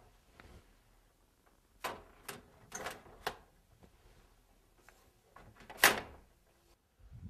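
Window screen being fitted back into a sliding window's frame: a series of light knocks and clicks, the loudest a sharp knock about six seconds in.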